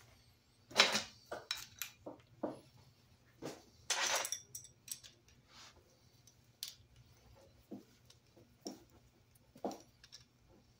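Wrenches and a metal fuel-hose fitting clinking and clicking as the fitting is worked on and tightened by hand. Scattered sharp clicks, with two louder short bursts about a second in and about four seconds in.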